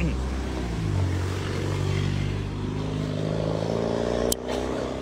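A motor vehicle's engine accelerating, its pitch rising steadily over a few seconds, with a sharp click about four seconds in.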